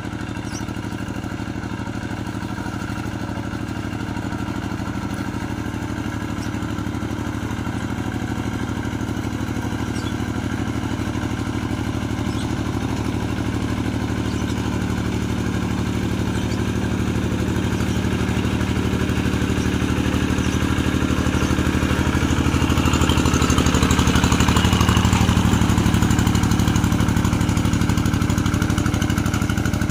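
Rice-paddy tractor engine running steadily while plowing. It grows gradually louder toward about three-quarters of the way through, then eases slightly.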